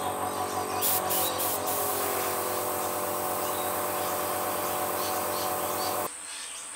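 Small airbrush compressor running with a steady hum, with short hissing bursts of the airbrush spraying paint about a second in. The hum cuts off suddenly about six seconds in.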